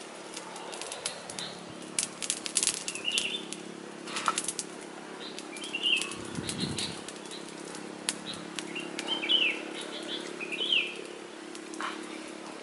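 Dry crackling and snapping as charred, fire-roasted food is handled, peeled and broken apart, in irregular clusters of sharp clicks. Short high bird chirps sound a few times in the background over a steady low hum.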